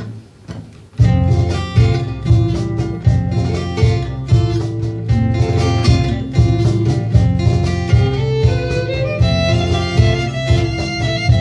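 Acoustic ensemble playing an instrumental passage: guitar plucking a steady rhythmic figure, with a violin line coming in over it. After a brief hush, the full playing comes in about a second in.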